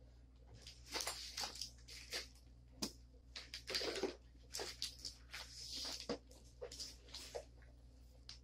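Rustling, scuffing and light knocks of clothing and other items being handled and moved about, in an irregular string of short bursts.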